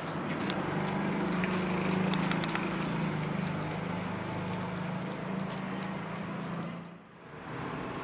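Steady machine hum with light crinkles and clicks from the door's plastic vapour barrier being handled. The hum drops away briefly near the end, then returns.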